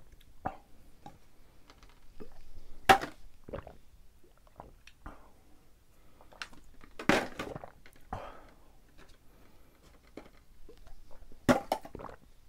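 Gulping down small plastic bottles of yogurt drink in quick succession: swallows and breaths mixed with sharp knocks of the bottles being handled and set down, the loudest about three seconds in, about seven seconds in and near the end.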